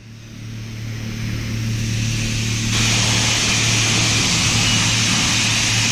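Self-service car wash high-pressure spray hissing over a steady pump-motor hum; the spray gets louder about three seconds in.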